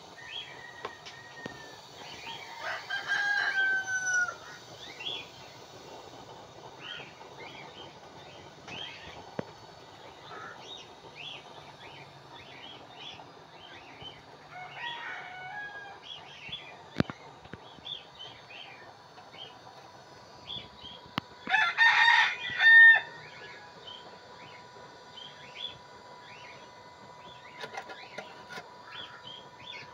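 A rooster crowing twice, about three seconds in and again, louder, past the twenty-second mark, while small birds chirp on and off throughout.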